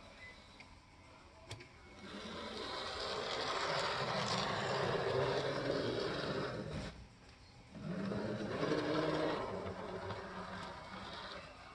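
AZL Z scale RSD-5 model diesel locomotive running on its track, its tiny motor and wheels giving a whirring, rattling hum. The sound swells and fades twice, loudest about five seconds in and again about nine seconds in.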